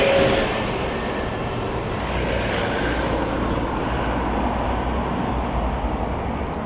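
City road traffic passing close by: a double-decker bus goes past at the start, the loudest moment, then a minibus and cars drive by, with a steady rumble of engines and tyres.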